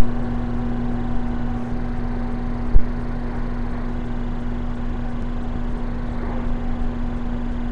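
A powered-up quadcopter sitting on the ground gives a steady hum with one constant pitch, and there is a single knock nearly three seconds in.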